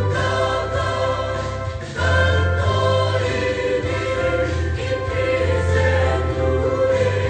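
Mixed choir of men's and women's voices singing a Mizo hymn together, over a low sustained bass note. The singing dips briefly about two seconds in, then swells back up.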